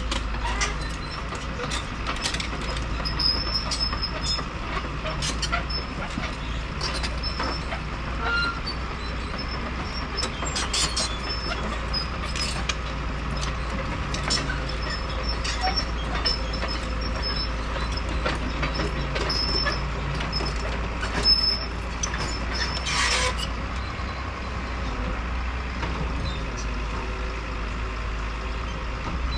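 Caterpillar tracked hydraulic excavator running steadily while digging dry earth, with scattered clanks and knocks from the bucket and tracks. One clank about three-quarters of the way through is louder than the rest.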